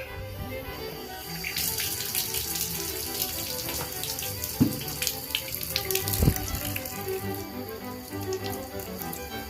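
Tap water running, starting about a second and a half in, over background music; two low thumps come in the middle.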